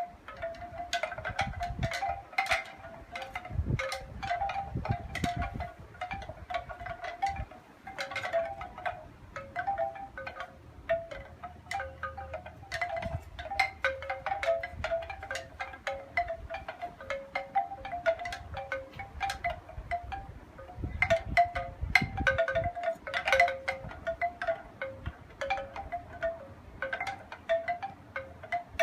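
Wind chimes ringing in the breeze, with many irregular, overlapping strikes on a cluster of tones. Gusts of wind rumble on the microphone now and then.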